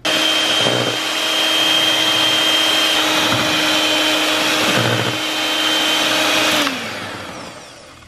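Electric hand mixer whipping eggs and sugar in a stainless steel bowl: a steady motor whine that switches on abruptly, then spins down with a falling pitch near the end as it is switched off.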